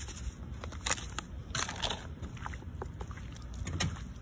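Plastic bag of breading mix crinkling as it is poured into a plastic bowl, then hands squishing and mixing raw iguana meat in the coating, with scattered crackles and clicks over a steady low rumble.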